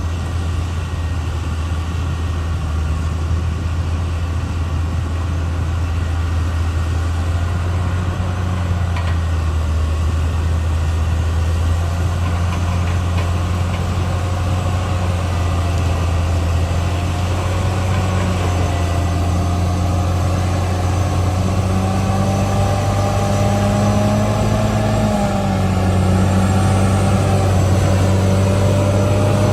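Caterpillar D6R XL crawler bulldozer's diesel engine running steadily, a strong low drone, with a higher whine that wavers and shifts up in pitch over the second half.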